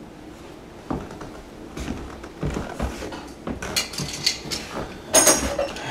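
Metal hand tools, slip-joint pliers and a sink drain wrench, clinking and knocking as they are picked up and handled, with sharper metallic rattles about four and five seconds in.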